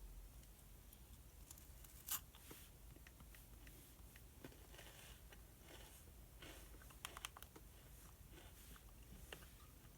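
Quiet desk study sounds: paper rustling as pages are handled, with one louder crinkle about two seconds in and a cluster of small clicks and taps around seven seconds.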